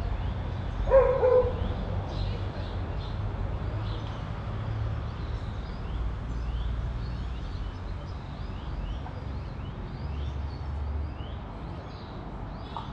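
A dog barks twice in quick succession about a second in. Small birds keep up short, falling chirps throughout, over a steady low rumble.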